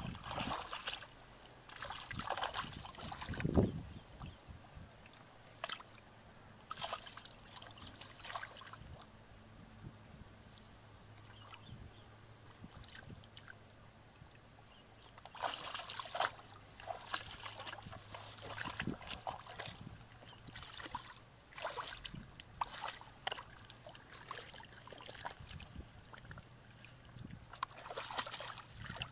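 Hands splashing and sloshing in shallow muddy water while groping for fish, in irregular spells of short splashes with quieter gaps between. A faint low hum runs under the middle stretch.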